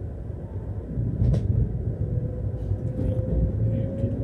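Meitetsu Panorama Super train running on the rails. The rumble grows louder about a second in, as the train rolls onto a steel truss bridge. There is a sharp click about a second and a half in, and a thin whine slowly rises in pitch through the second half.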